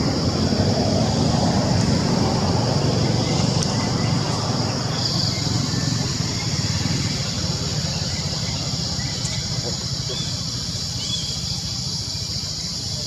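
Low rumble, loudest in the first few seconds and slowly fading, under a steady high-pitched insect drone; a few short bird chirps near the end.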